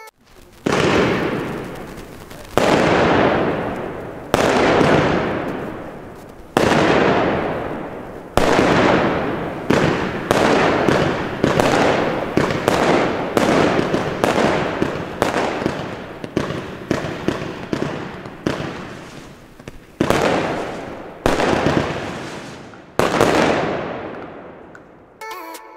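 Consumer firework battery firing a run of about twenty shots. Each is a sharp report that fades out over a second or so. The shots come every one to two seconds, quicker in the middle, and stop just before the end.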